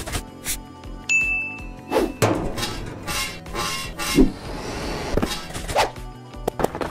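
Cartoon sound effects over background music: a string of short knocks and swishes, and a high ringing ding lasting about a second that starts about a second in.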